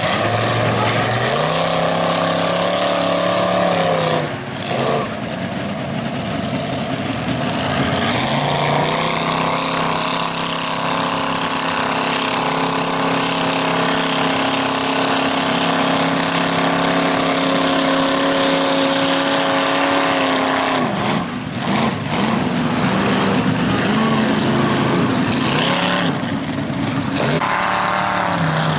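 Ford F-350 mega mud truck's engine revving hard through its bull horn exhaust stacks as it churns through a mud pit, with mud and water spraying off its tires. The revs are held high for long stretches and drop off briefly about four seconds in and again about twenty-one seconds in before climbing once more near the end.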